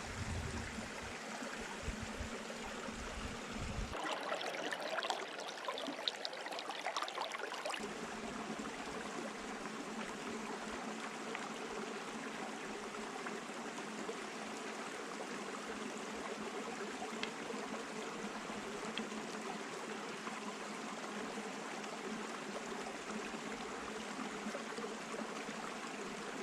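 Stream of water flowing steadily. Low gusts of wind rumble on the microphone for the first few seconds, and some brighter splashing comes through about four to eight seconds in.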